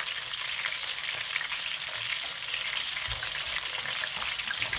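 Chicken thighs frying in hot oil in a frying pan: a steady sizzle with many small crackles and pops.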